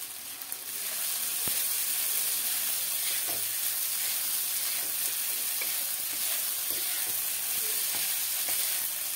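Soaked sago pearls sizzling in hot oil in a non-stick kadhai while a wooden spatula stirs and scrapes them through the tomato tempering. The sizzle rises about a second in, then holds steady, with light scraping ticks from the spatula.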